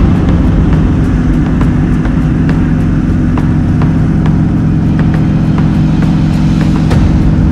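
Yak-52's nine-cylinder radial engine and propeller drone steadily, heard from inside the cockpit.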